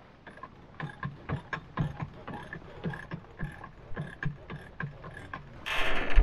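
Winch being cranked to hoist the mainsail to the top of the mast after shaking out the reef, its pawls clicking about four times a second. A louder rushing noise comes in near the end.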